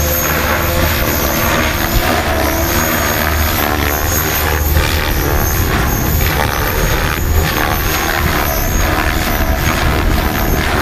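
Electric 600-size RC helicopter (HobbyKing HK-600, 6-cell) in hard aerobatic flight. The rotor blades whoosh, swelling briefly several times as it manoeuvres, over a steady high whine from the electric motor and drivetrain.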